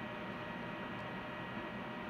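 Steady hiss with a faint electrical hum running under it: room tone with no distinct events.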